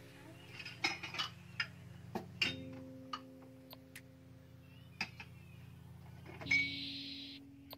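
Glass and ceramic cups clinking and knocking as they are set into a plastic dish drainer, a dozen or so light irregular knocks, with a short scrape near the end. Soft background music plays underneath.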